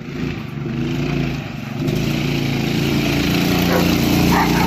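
Yerf-Dog go-kart's small engine running hard as the kart drives up, growing louder as it approaches.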